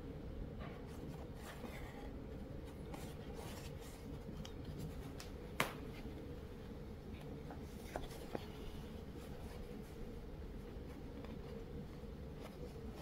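Embroidery needle and thread being drawn through cotton fabric by hand: soft, scratchy rustling, with a sharp click about five and a half seconds in and two lighter ticks around eight seconds.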